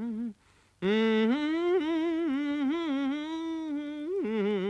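A man's voice singing a wordless tune on 'la', with a strong vibrato; it breaks off briefly about half a second in, then carries on with gliding melodic phrases.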